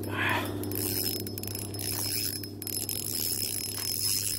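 Spinning fishing reel being cranked, its gears whirring with a steady fine clicking as a hooked fish is reeled in.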